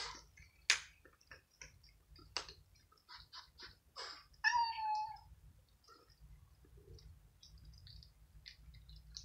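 Cats crunching dry kibble: a run of short, sharp crunches and clicks. About halfway through, one cat gives a single meow lasting under a second.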